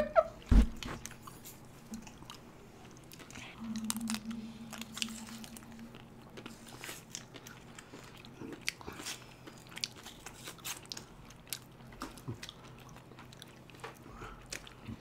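People eating ice cream: bites into chocolate-coated ice-cream bars, with crunching, chewing and many small wet mouth clicks. One louder thump about half a second in.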